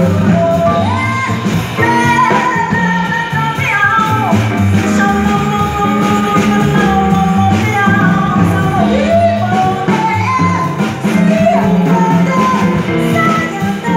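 Live jazz: a woman singing into a microphone with upright double bass accompaniment, her voice sliding up and down through long held notes.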